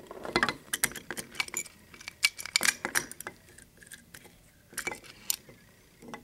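Irregular light metallic clicks and clinks from a 7-lever safe lock being handled, with its face off. The clicks come thickly through the first three seconds, then a short group near five seconds.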